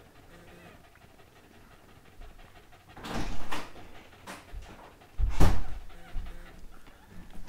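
Goldendoodle mother dog panting while in labour. After a quiet couple of seconds come two loud, noisy breaths about two seconds apart.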